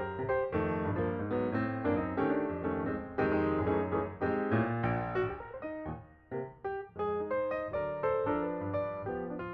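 Background music: piano or electric keyboard playing a steady run of short notes.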